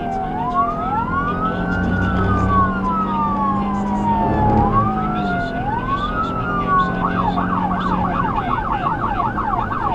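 SoundOff Signal nERGY 400 200-watt electronic siren through a 100J composite speaker sounding a slow rising-and-falling wail, then switching about seven seconds in to a fast yelp of about four warbles a second.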